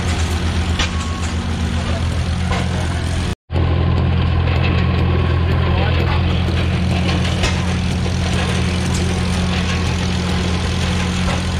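Antique stationary engines running steadily with an even, fast low pulse, with people talking in the background. The sound cuts out for a moment about three and a half seconds in, then carries on.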